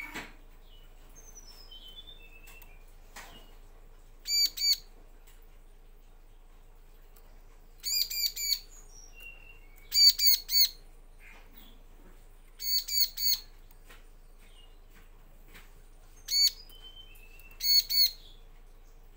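Bar-winged prinia (ciblek) calling in bursts of two to four sharp, high chip notes in quick succession, every few seconds. Softer, thin falling chirps come between the bursts. A single knock sounds right at the start.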